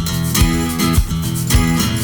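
A band's song between sung lines: strummed guitar chords over a steady beat of about two hits a second.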